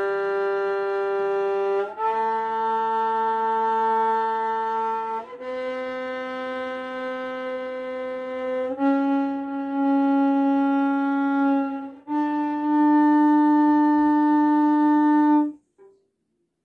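Violin bowing a rising five-note scale on its G string, G, A, B, C, D, each note held about three seconds and changing cleanly to the next. The notes stop about a second before the end.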